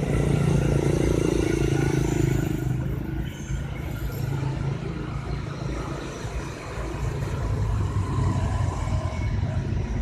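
Steady low hum of a running engine, a little quieter after about two and a half seconds.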